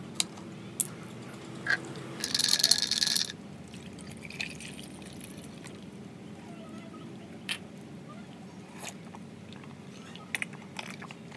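Plastic drink bottle twisted open, releasing a loud hiss of escaping gas for about a second, then soft pouring into a mug, with a few light clicks and knocks.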